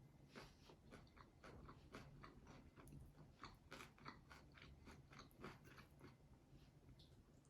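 Faint crunching and chewing of someone eating, a series of small irregular crunches and clicks, a few each second.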